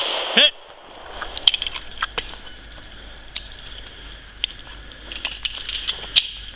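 Footsteps crunching and scuffing irregularly on loose rocky ground, a shooter moving between targets. A short call of "Hit" comes right at the start.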